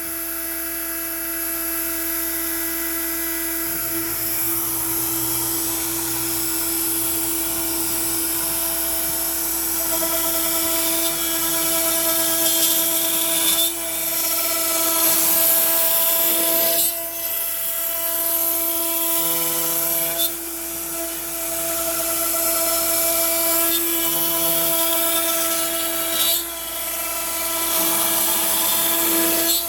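Makita router spinning at about 18,000 rpm with a 1/4-inch upcut bit, cutting through pine as the Onefinity CNC feeds it at 200 inches per minute. It is a steady high whine under the cutting noise, which dips briefly four times.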